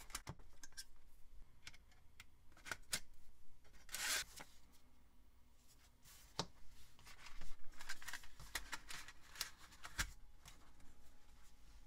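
Handling noise from a slim optical drive and its plastic mounting bracket being turned over and set on a desk: scattered light clicks and rustles, with a longer rustle about four seconds in and a quick run of clicks later on.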